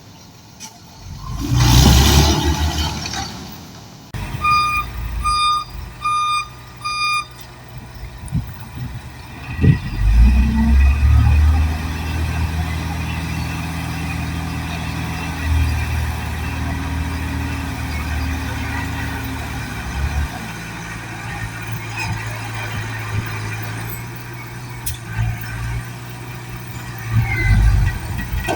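A loud rush of noise lasting about two seconds, then a vehicle's reversing alarm beeping four times, then a heavy machine's engine running steadily with a low drone that shifts in pitch a few times.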